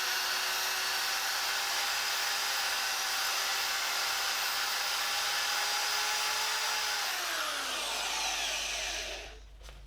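Electric drill fitted with an attachment, running at a steady speed with a whine over hiss. About seven seconds in it is released and its pitch falls as it winds down to a stop.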